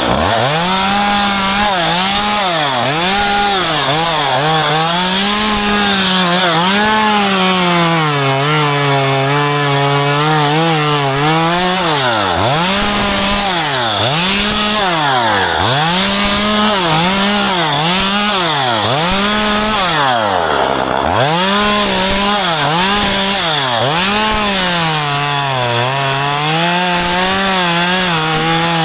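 Chainsaw running while cutting branches, its engine pitch rising and falling over and over as the throttle is opened and eased off. It drops almost to idle about two-thirds of the way through.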